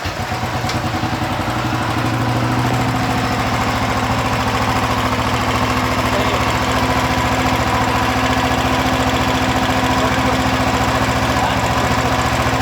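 Royal Enfield 350 Electra's single-cylinder four-stroke engine starts and settles into a steady idle with an even, regular beat, getting louder over the first two seconds. It is being run to check for a tapping noise after its worn rocker arm pads were smoothed.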